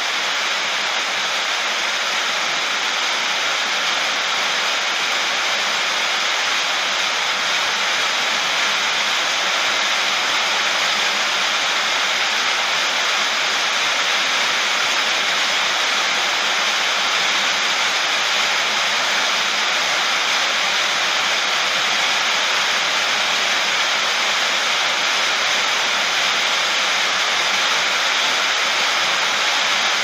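Heavy rain falling on a sheet-metal roof, a dense steady hiss.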